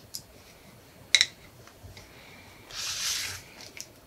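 Eyeshadow palette and makeup brush being handled: one sharp click about a second in, then a short hiss near three seconds in.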